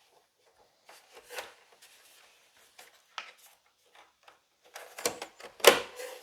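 Plastic outer case of an Xbox One X being slid back into place by hand: light rubbing and scattered clicks, then a cluster of louder clicks and snaps near the end as the panel seats.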